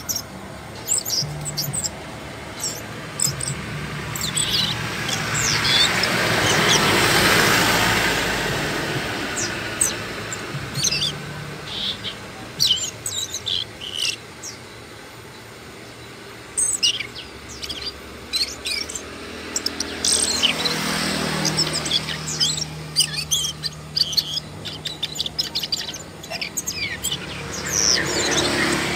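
Asian brown flycatcher singing: many thin, high chirps and twitters in quick clusters throughout. A broad rushing noise swells and fades about a quarter of the way in, louder than the bird, and rises again about two-thirds of the way through and near the end.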